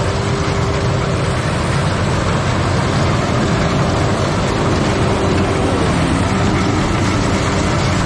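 Tracked rice combine harvester running at work in a paddy field: a steady engine drone with a thin, steady whine over it as the machine cuts and threshes the crop.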